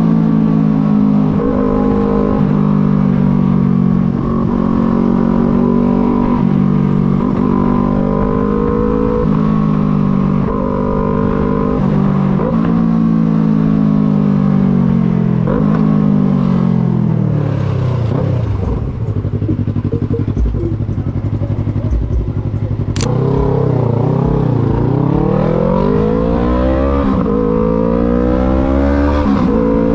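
Yamaha MT-03 motorcycle engine under way: it pulls up through several gears, each rise in pitch followed by a drop at the shift, then slows to a low near-idle note. A sharp click is heard about two-thirds of the way through, and the engine then accelerates again through the gears.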